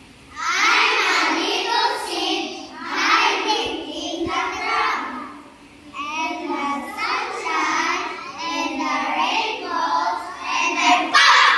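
A group of young children singing a rhyme together in unison, in short phrases with brief pauses between them.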